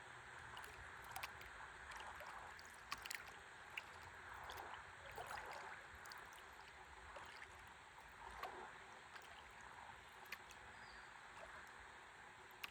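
Faint river water lapping and gurgling against a stand-up paddleboard, with scattered small clicks and drips.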